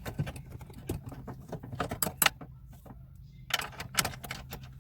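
Light metallic clicks and clinks of hand tools working a dash bolt, irregular, bunched in a few short runs.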